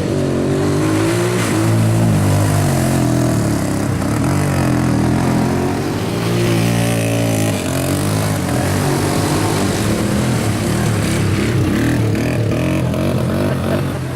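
ATV engine revving hard, its pitch climbing and dropping again and again as the throttle is worked.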